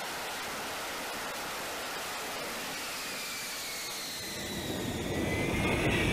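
F-35B's Pratt & Whitney F135 jet engine running with a steady hiss. About four seconds in, a louder rumble swells up with a faint rising whine.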